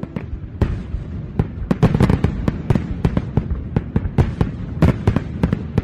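Fireworks going off: a fast, irregular string of sharp bangs and crackles, several a second, over a low rumble.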